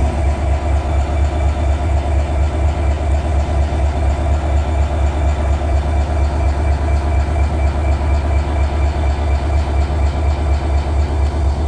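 Parked Norfolk Southern diesel-electric locomotives idling: a steady, evenly throbbing low rumble.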